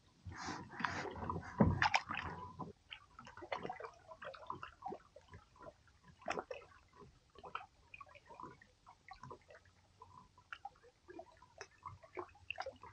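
Small water sounds against a kayak hull: light sloshing, gurgling and drips in scattered little ticks, with a louder stretch of noise in the first two seconds or so.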